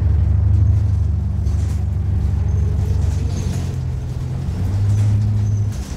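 Onboard a 2013 New Flyer XDE40 hybrid bus underway: the Cummins ISL9 diesel and Allison hybrid drive give a steady low drone, which shifts in pitch near the end.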